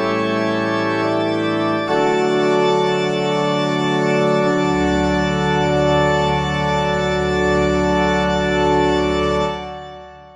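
Background music of sustained organ chords, changing about two seconds in, with a deep bass note joining before the middle; it fades out near the end.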